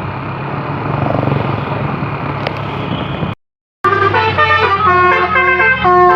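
A basuri musical air horn, the Indonesian 'telolet' bus horn, playing a quick tune of stepping notes starting about four seconds in, after a short break in the sound. Before it comes about three seconds of steady rumble and hiss.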